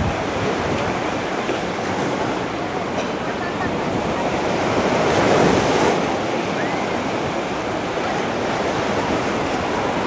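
Beach ambience: a steady wash of surf and wind on the microphone, swelling briefly about five seconds in.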